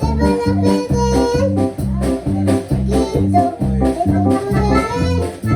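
Upbeat gospel corito music with a steady pulsing bass beat under melody lines.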